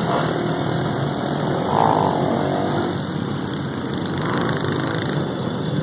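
Engines of a group of small motorcycles running together on the move, heard from a bike riding among them, with a brief louder note about two seconds in.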